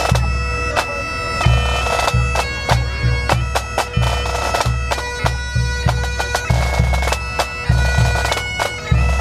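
A pipe band playing: Great Highland bagpipes sound a melody over their steady drones, with drum strokes keeping time.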